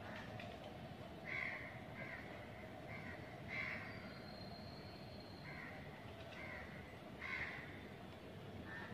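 Crows cawing, several short harsh calls, often in pairs, over a steady background hum.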